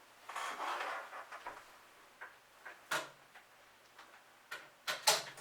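Handling noise of cables and a plastic enclosure. A soft rustle in the first second, then a sharp click about three seconds in and two more close together near the end.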